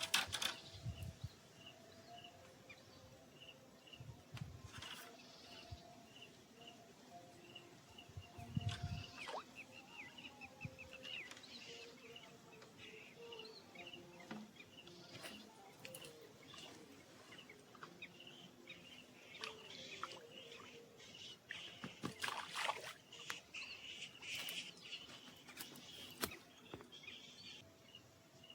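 Quiet outdoor ambience with birds calling, including a short high note repeated about twice a second, and occasional faint clicks and knocks.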